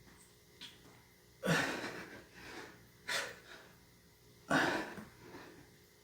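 A man breathing hard during push-ups: three forceful exhales about a second and a half apart, one per rep, with fainter breaths between.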